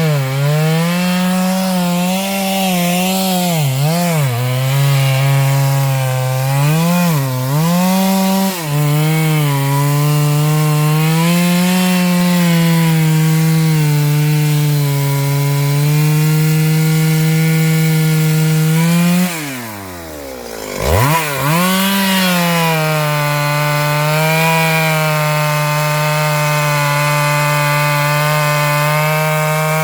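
Stihl MS 382 two-stroke chainsaw at full throttle cutting into a large sengon trunk, its pitch dipping and recovering under load in the first several seconds. About two-thirds through, the engine drops briefly toward idle, then revs back up and carries on cutting at a steady pitch.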